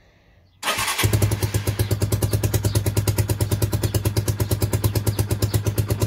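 Lifan 125 motorcycle engine cranked on the electric starter, catching about a second in and then idling with a rapid, even beat. It starts now that the loose wire on the kill switch has been soldered back onto its terminal.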